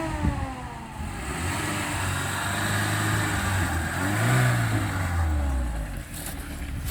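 Lada Niva's engine under way, its revs rising to a peak about four seconds in and then falling away. At the start a high whine slides down in pitch and fades.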